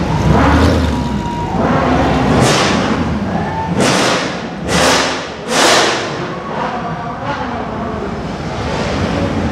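Mercedes-AMG C63 V8 engines revving hard in a run of short, sharp bursts, the loudest two just past the middle, as the cars pull away.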